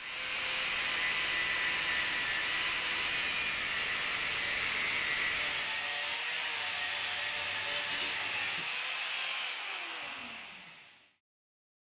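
Angle grinder cutting steel rectangular tube: a steady, hissing grind, then the motor winds down in pitch and stops about eleven seconds in.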